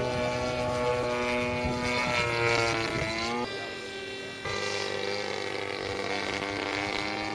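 Radio-controlled model airplane's engine running at high revs with a steady buzzing tone, its pitch sliding down about two to three seconds in as the plane passes. The sound changes abruptly twice, a little after three seconds and again after four seconds.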